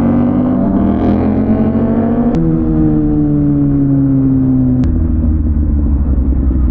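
Kawasaki ZX-6R inline-four engine on the move: revs climb for about two seconds, a quick gear change, then the revs fall away steadily as it slows, settling into a low, even rumble about five seconds in.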